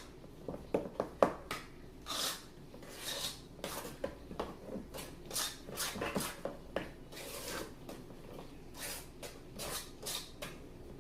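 A utensil folding a thick cheesecake filling by hand in a mixing bowl: irregular scrapes and rubs, with light knocks against the bowl.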